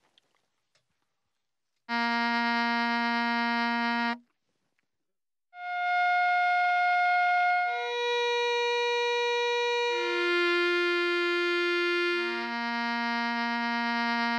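Baritone saxophone holding one steady low note for about two seconds, after a short near-silence. After a brief gap the same written note follows on soprano, alto, tenor and baritone saxophones in turn, each held about two seconds and each lower in pitch than the one before, the baritone still sounding at the end.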